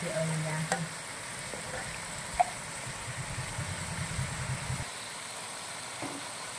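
Bugs frying in a wok with a steady sizzle, under a low hum that comes and goes, with one sharp clink about two and a half seconds in.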